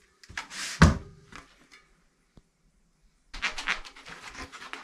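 A single heavy thump about a second in, then after a short quiet a stretch of irregular clattering and rustling handling noise.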